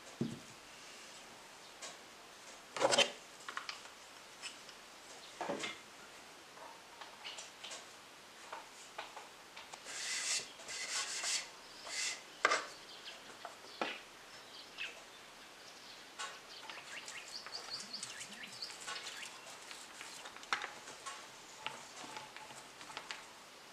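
Painting materials being handled: scattered light taps and knocks, and a hand rubbing across a round wooden panel, with the rubbing heaviest about ten to twelve seconds in.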